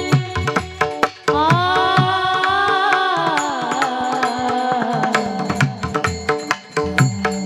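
A Marathi devotional kirtan melody with drum accompaniment and steady held notes beneath. A voice enters with a sliding, ornamented sung line about a second in.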